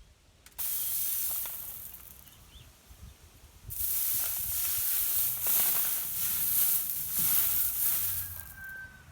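Hard red winter wheat berries rubbed and sifted through a hand screen, a dry rustling hiss. It comes in a short spell about half a second in, then a longer, louder spell from about four seconds to near the end.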